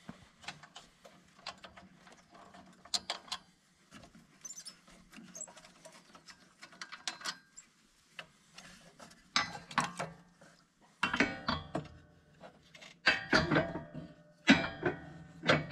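Hands working on a tractor's battery bracket and its electrical connector: scattered light clicks and taps, then from about nine seconds in a run of louder rattling clatters as the parts are handled and pulled free.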